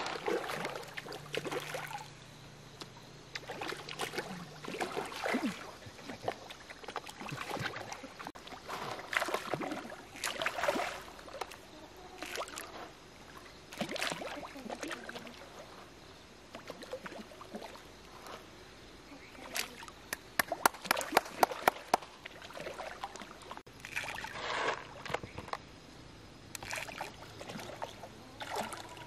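Pond water splashing and slurping as fish feed at the surface, in irregular small splashes. About two-thirds of the way through comes a quick run of sharp pops and smacks at the water surface.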